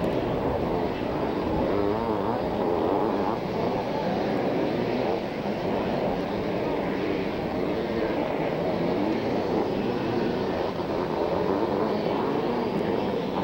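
Motocross bikes with 500cc two-stroke engines racing round the track. Their engines make a continuous drone that rises and falls in pitch as the riders rev through the course.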